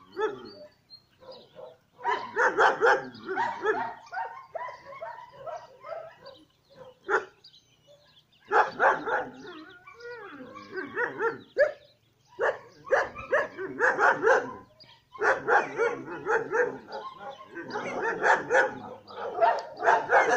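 Dogs barking in quick runs of many barks, broken by pauses of about a second or two, with the barking fullest over the last few seconds.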